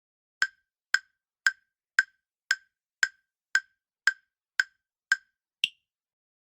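Quiz countdown timer sound effect: ten short, sharp ticks about two a second, then a last, higher-pitched tick marking time up.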